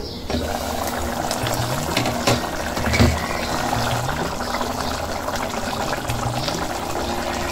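Water poured steadily into a cooking pot, with background music carrying a repeating rising bass line.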